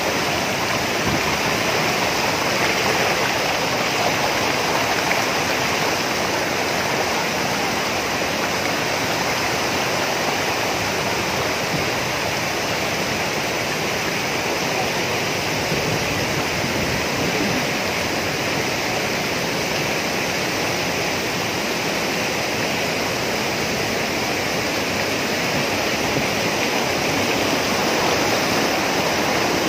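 Waterfall pouring into a rocky pool and stream: a steady, unbroken rush of water.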